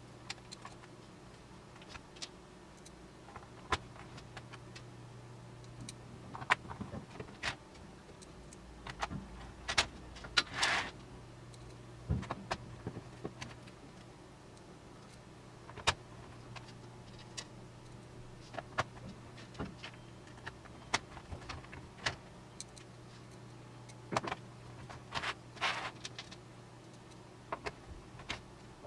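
Scattered clicks and knocks of the plastic Logitech K120 keyboard case and parts being handled and fitted back together, with a brief rasp about a third of the way in and another near the end, over a steady low hum.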